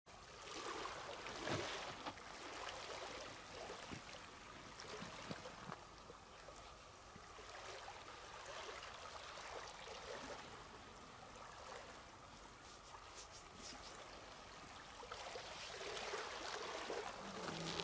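Faint running water, a steady gentle wash that swells a little near the start and again near the end.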